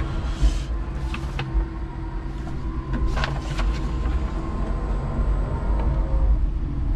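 Electric forklift truck driving with a load, heard from inside its cab: a steady low rumble with a faint even whine. A short hiss comes about half a second in, and a few sharp clicks and knocks follow, a couple around a second in and more around three seconds in.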